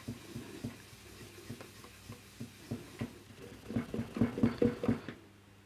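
A cloth rag with Brasso rubbed back and forth over a plastic radio case to polish out a mark: a run of faint, soft rubbing strokes that grow busier a little past the middle and stop shortly before the end.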